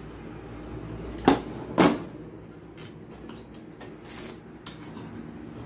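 Thin rui fish curry gravy sipped straight from a stainless steel plate: two short, loud slurps about half a second apart, a little over a second in, then a softer mouth sound.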